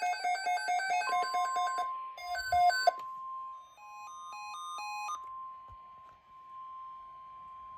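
A steady single-pitch alert tone, the NOAA Weather Radio 1050 Hz warning alarm tone, starts about a second in and holds at an even level, signalling that a weather alert message follows. Over the first half, pulsed electronic musical beeps play over it and die away.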